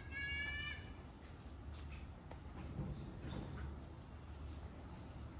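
Outdoor ambience of insects chirping steadily, with a short high-pitched whistled call in the first second over a low rumble.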